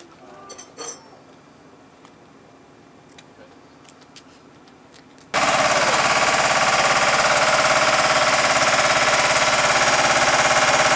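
Quiet ambience with a few faint clicks. About five seconds in, a loud, steady, fast-rattling machine noise cuts in abruptly and keeps running.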